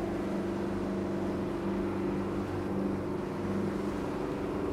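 Motorboat engine running steadily, an even low hum that holds the same pitch throughout.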